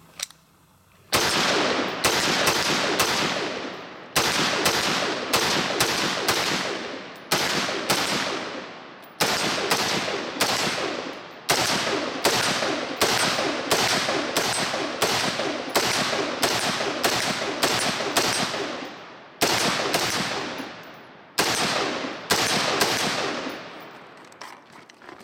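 HM Defense HM15 Commander MB5 AR-15 in 5.56 NATO fired semi-automatically: a long string of loud shots at about two a second, in groups with short pauses, each shot trailing off in echo. The firing starts about a second in and stops a second or so before the end.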